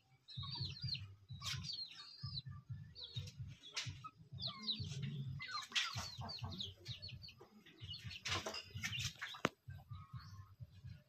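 Chicks peeping over and over in short, high chirps, with backyard chickens clucking.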